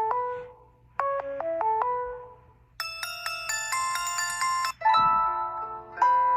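Samsung Galaxy S4 mini ringtones playing in turn: a short phrase of notes heard twice, then a brighter, busier chiming tone from about three seconds in, and a different melody starting near the end.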